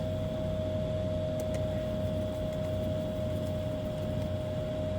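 A steady electrical hum with a constant high-pitched whine, unchanging throughout and with no distinct events.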